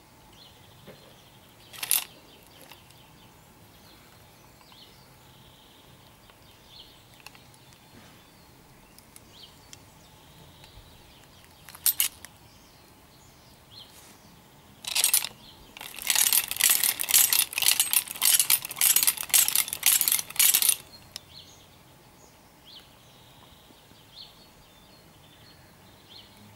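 Steel finger blades of a replica Freddy Krueger glove clinking and scraping: a few single metallic strikes, then a quick run of them lasting about five seconds past the middle.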